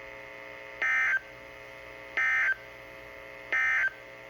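Three short, identical bursts of weather-radio SAME digital data, evenly spaced about 1.4 seconds apart, over a steady radio hum. These are the end-of-message code that closes the special marine warning broadcast.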